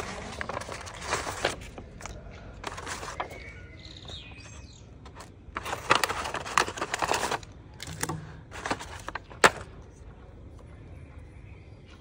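Paper envelope being torn open and its paper handled, in several rustling, tearing bursts, with a sharp click about nine and a half seconds in. Faint bird chirps between the bursts.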